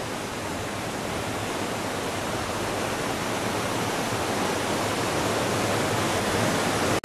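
Whitewater rapid rushing: a steady, even roar of fast water that grows slightly louder.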